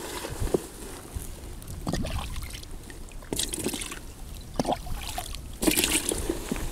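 Pond water scooped with a plastic cup and poured into a plastic bucket: splashing and trickling, with two louder pours in the second half.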